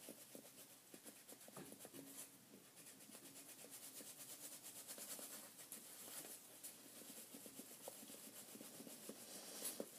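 Faint pencil scratching and rubbing on paper, a steady run of small, quick strokes.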